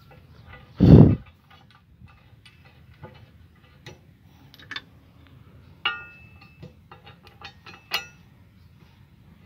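Metal clinks and taps as a Sany SY220 excavator's track chain guard is handled and fitted against the undercarriage, several with a short ring, most of them in the second half. A loud dull thump about a second in.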